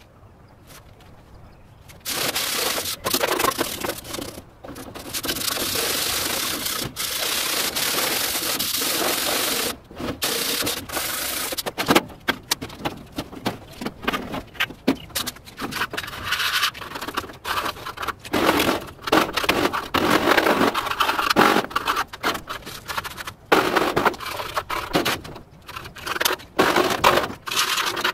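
Hand sanding on the rusted metal of a BBQ grill cart, a steady rubbing that starts about two seconds in, then breaks into irregular scraping and rubbing with short knocks of metal panels being handled as the cart is taken apart.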